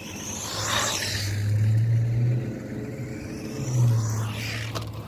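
Fayee FY03 Desert Eagle RC truck driving: its electric motor whines, rising and falling in pitch in two surges as it speeds up and slows, on a battery that is running low.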